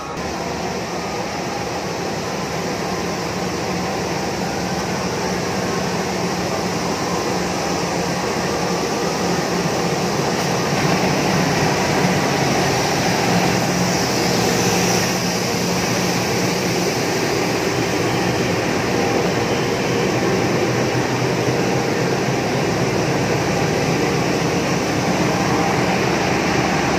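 Diesel shunting locomotive running close by on the station track, a steady engine drone that grows gradually louder as it moves.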